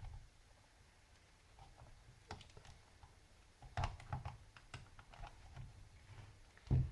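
Scattered small clicks and taps of a screwdriver working against a Samsung NP305V laptop's plastic case while a screw is undone.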